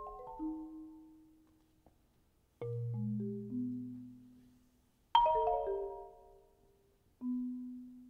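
Solo marimba played with four mallets: a few separate strokes and quick clusters of notes, each ringing out and fading away, with quiet gaps between them. A deep low note sounds about two and a half seconds in, and the loudest cluster about five seconds in.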